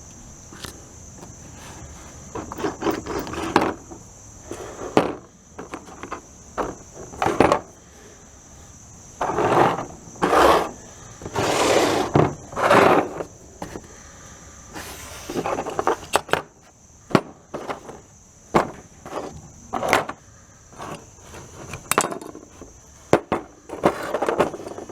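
Small die-cast metal toy cars and parts handled on a hard work surface: irregular scrapes, clicks and knocks, some scrapes lasting a second or so, over a faint steady high-pitched hiss.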